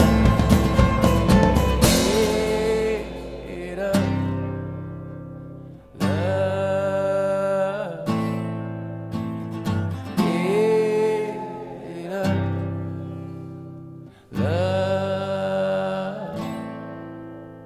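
Music: a song with a singing voice over guitar, in a slow, quiet passage where each held phrase fades out before the next begins.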